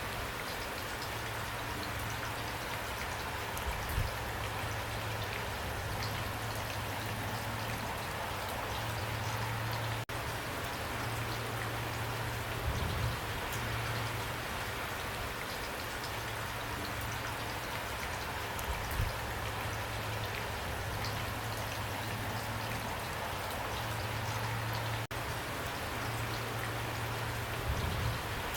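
Heavy rain pouring steadily, an even hiss of countless drops, with a few louder low thuds of heavier drops landing now and then.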